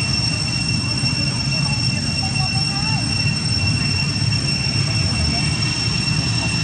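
Steady outdoor ambience: a continuous high-pitched whine at two pitches over a low rumble, with faint distant voices about two seconds in.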